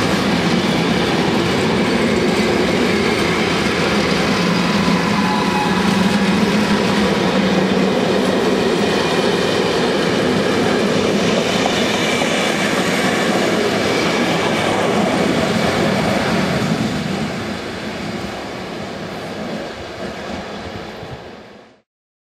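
SBB RAe TEE II electric trainset departing past at close range: its coaches' wheels run steadily on the rails. The sound eases off after about 17 s and cuts off abruptly near the end.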